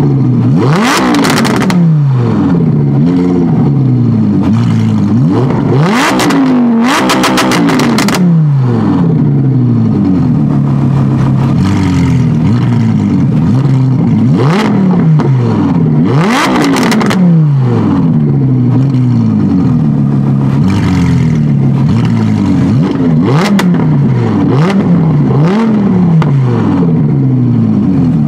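Audi R8 V10 Plus's 5.2-litre V10 with a loud Capristo exhaust, revved over and over while standing still, its pitch rising and falling every second or two. Sharp exhaust pops and crackles come in several times, most in a quick cluster about seven seconds in.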